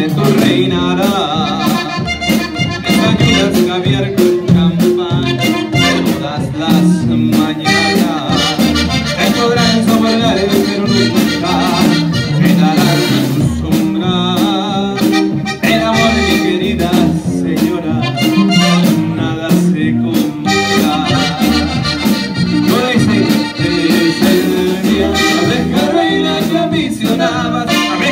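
Live norteño band playing: accordion carrying the melody over guitars, with a drum kit keeping a steady beat.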